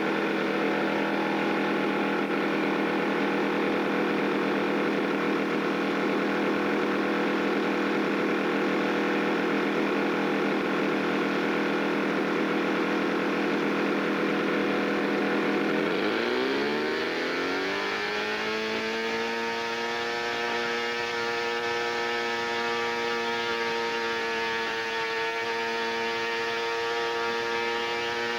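Super Tiger ST 6000 twin-cylinder 60 cc glow engine of a quarter-scale RC Hawker Hurricane running steadily on the ground. About 16 seconds in, its pitch sweeps as the throttle is moved, and it settles into a new steady note.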